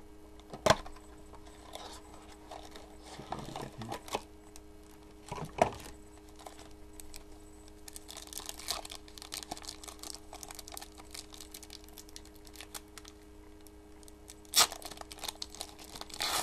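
Trading-card pack wrapper being torn open by hand and crinkling for several seconds in the second half, with three sharp snaps from handling the cardboard box and pack, the loudest near the end. A faint steady hum runs underneath.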